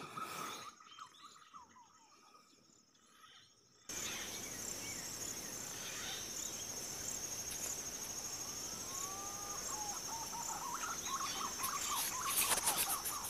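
Insects trilling in a steady high-pitched chorus over an even hiss, faint at first and jumping abruptly louder about four seconds in. A few short bird calls sound in the middle, and a cluster of sharp clicks and rustles comes near the end.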